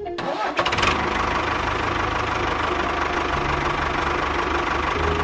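Motor of a miniature DIY construction machine running steadily with a steady whine, after a brief drop-out near the start.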